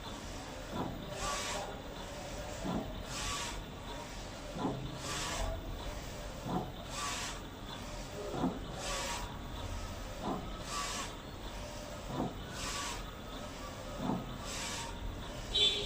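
Direct-to-garment printer running a print, its print-head carriage sweeping back and forth: a hissing sweep about once a second, with a low knock about every two seconds.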